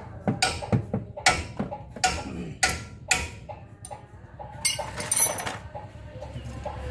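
Repeated sharp knocks, about two a second for some three seconds, then a brief rattling clatter a little after halfway.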